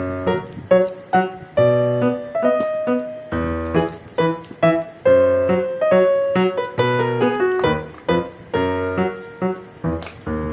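Background keyboard music: a piano melody of short, quickly fading notes over a low bass line.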